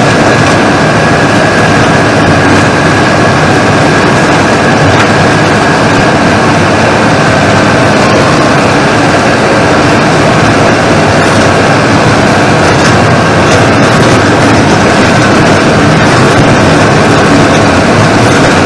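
Tractor engine running steadily under load while a hydraulic boom-arm mower head cuts roadside grass: a loud, constant drone with a steady high whine over it.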